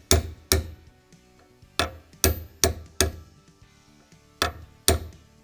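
A hammer tapping a brass sight punch to drift a pistol's rear sight sideways into the slide's dovetail: eight sharp taps in three groups of two, four and two, each with a short ring.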